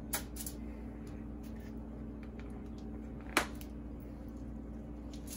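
Quiet kitchen with a steady low hum, two light taps just after the start and one sharp plastic click about three and a half seconds in as a plastic grated-Parmesan shaker is handled.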